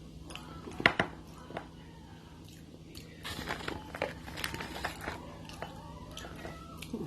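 Close eating sounds: crackers being bitten and chewed in short crunchy clicks, most of them between about three and five seconds in. Two sharp, loud clicks come about a second in.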